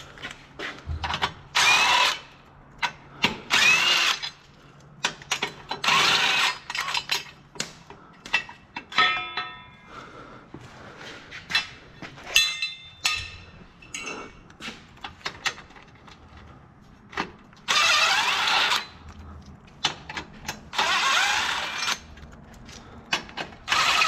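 Cordless power tool running bolts out in short bursts of about a second each, six times, with a long pause in the middle. Light metallic clicks, clinks and knocks from handling tools and loose hardware fill the gaps.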